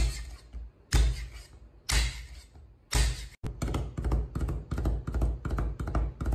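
Chinese cleaver striking garlic on a thick round wooden chopping board. The blade comes down in four heavy knocks about a second apart, then settles into rapid, even mincing at about four strokes a second.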